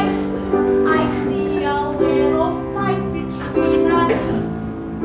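Live grand piano playing held chords that change about once a second, with a woman singing over it.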